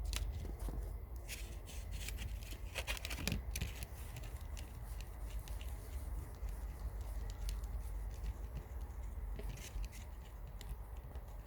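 Irregular light clicks and scrapes of hand work: two-part epoxy resin being spread onto the fractured plastic securing bracket of a headlamp. A steady low hum runs underneath.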